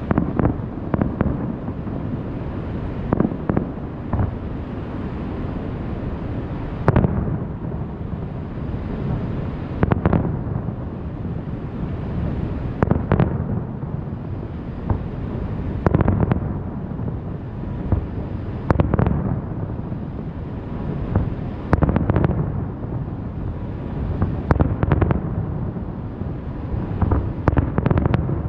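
Aerial fireworks shells bursting, a sharp boom about every three seconds with a few quick clustered bangs near the end, over a steady low rumble.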